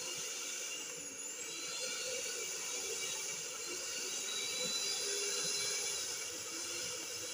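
Russell Taylors 3.5 L stand mixer's electric motor running, its whisk spinning in an empty stainless steel bowl: a steady high-pitched whine with hiss.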